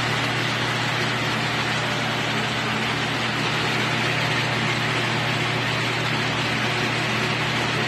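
Grow-tent ventilation fans running, a constant rush of air with a steady low hum beneath it.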